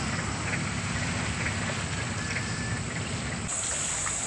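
Motorbike engine drone from road traffic, a low steady rumble; about three and a half seconds in it cuts to a steady high insect buzz.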